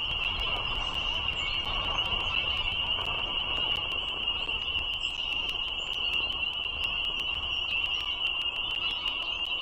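A dense chorus of frogs, most likely spring peepers, their high peeps merging into one steady shrill band, over a low rumble.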